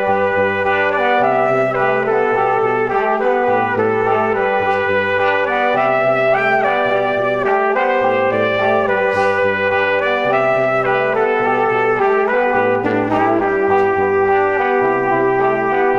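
Background instrumental music, with a bass line that moves in steady, even steps.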